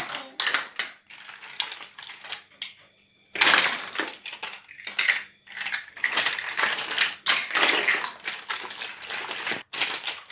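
Plastic toy building blocks clattering against each other and the dishwasher's wire rack as they are pulled out, in irregular rattles and knocks with a brief lull about three seconds in.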